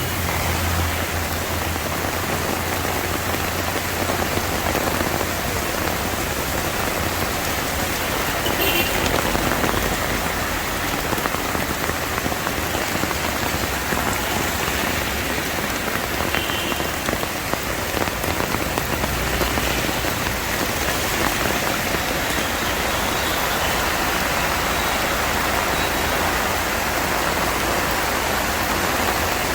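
Heavy monsoon rain pouring down steadily, a dense, even hiss of rain falling on surfaces.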